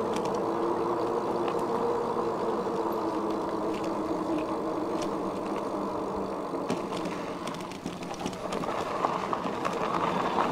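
Himiway Zebra fat-tyre electric bike riding on a dirt and gravel trail: a steady hum from its motor and tyres, with scattered small ticks. The hum fades briefly about eight seconds in, then returns.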